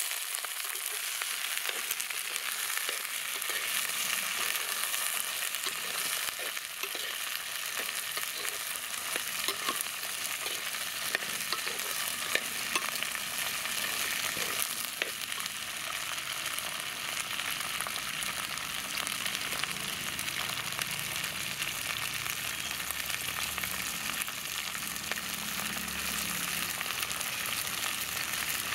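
Small red onions (shallots) with dried red and green chillies sizzling in hot oil in a clay pot. A steel ladle stirs them, and its taps and scrapes against the pot are heard mostly in the first half.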